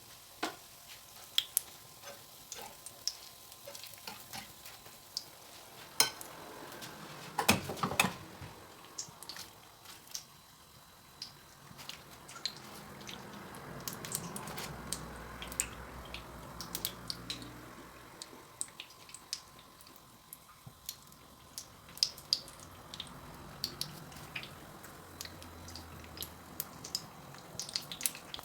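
Batter-coated hot dogs frying in hot oil: a steady low sizzle with frequent sharp pops and crackles, and a few louder knocks about six to eight seconds in.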